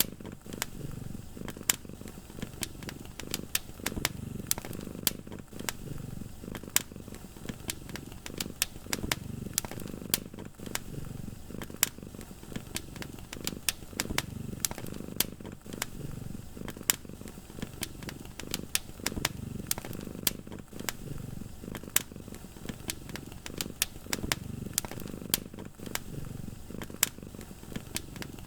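A cat purring steadily, the low purr swelling and fading with each breath. Over it a fireplace fire crackles in sharp, irregular pops, which are the loudest sounds.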